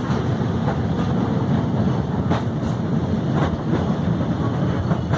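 Kolkata tram running along its rails: a steady low rumble, with a few sharp knocks a couple of seconds in.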